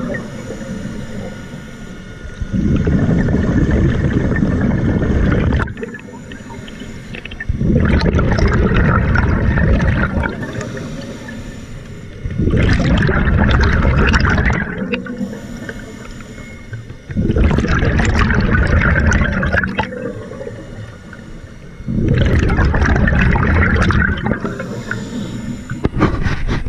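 Scuba diver breathing through an open-circuit regulator underwater: a quieter hissing inhale alternates with a loud, low rush of exhaled bubbles. The cycle repeats about five times, roughly once every five seconds.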